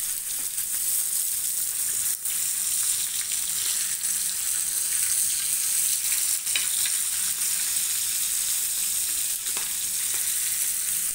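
Marinated Indian mackerel (bangda) shallow-frying in oil with a steady sizzle, only lightly fried to cook off the raw masala. A spatula scrapes or taps the pan a few times as the fish are turned.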